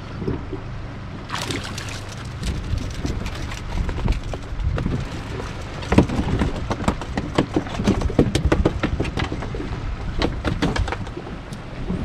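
Small waves slapping and splashing against the hull of a small boat in quick, irregular smacks, over a low wind rumble on the microphone.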